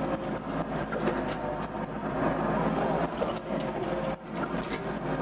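Doosan DX55 mini excavator's diesel engine running under working load, with irregular metallic clanks and knocks from the digging work. The bucket is loose on its worn quick-coupler.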